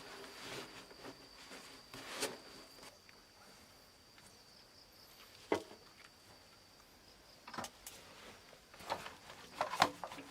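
An insect's steady high-pitched drone, with scattered knocks and rustles of handling; the sharpest knock comes about halfway through and a cluster near the end.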